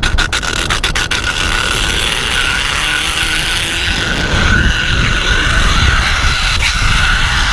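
Zipline carabiner running along the cable with a steady whine, and wind rushing over the microphone in a low rumble. A quick run of clicks from the metal on the line dies out about a second in.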